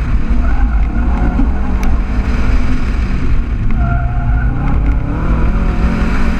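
A car's engine pulling hard through an autocross course, picked up by a camera mounted outside the car, with a heavy wind rumble over the microphone.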